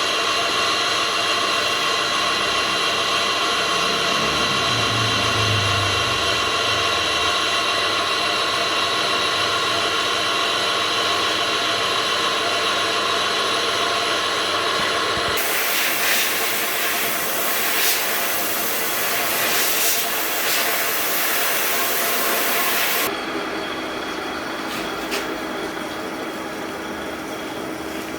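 Alloy wheel diamond-cut lathe running with a steady, many-toned whine. About halfway through, a loud hiss sets in for several seconds. It then stops sharply, and the machine runs on more quietly with a few clicks.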